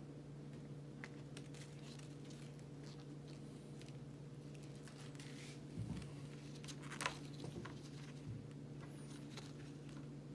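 Faint handling of toy packaging: scattered light clicks and plastic and cardboard crinkles, a little busier past the middle, over a steady low electrical hum.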